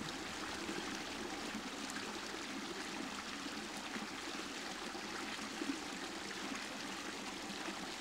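Norbury Brook, a small urban stream in a concrete channel, running and gurgling steadily over stones.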